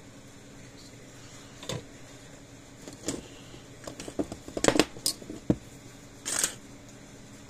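Scattered clicks and knocks of small tools and parts being handled at a workbench, busiest about halfway through, with a short scraping rustle near the end.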